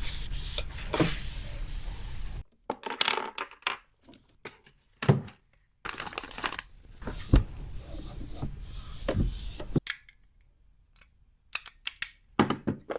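Plastic claw clips clicking and clattering against each other as a box of them is rummaged through: many sharp clicks, broken off suddenly a few times.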